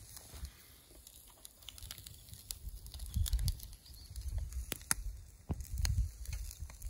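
Uneven low rumble of wind buffeting the microphone, with scattered small clicks and taps as food is laid on a wire grill over charcoal.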